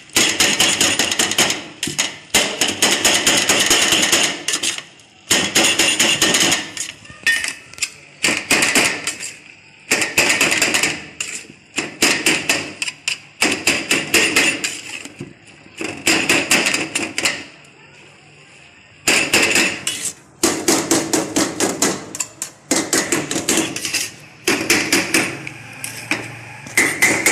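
Metal spoon rapidly knocking and scraping against a steel pan as cooked, crumbled chicken is chopped and stirred. It comes in bursts of a second or two with short pauses between.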